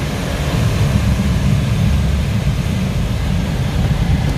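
Steady, loud rush of air inside the canopy of an ASK 21 two-seat glider in flight, a deep rumble with a hiss above it and no engine.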